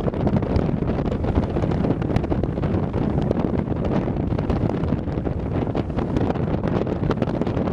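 Extremely strong wind buffeting the microphone: a loud, continuous low rumble full of rapid crackles and pops.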